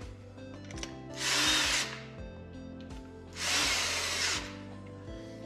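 Power drill screwing tight bolts into a motor mount's recessed holes in two short runs of about a second each, about two seconds apart, with background music underneath.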